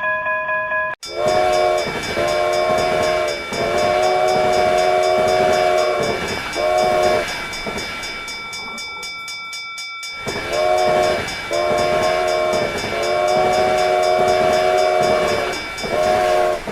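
Train horn sounding a chord in four blasts, short, short, long, short, then the same pattern again after a pause of a few seconds, over steady train running noise.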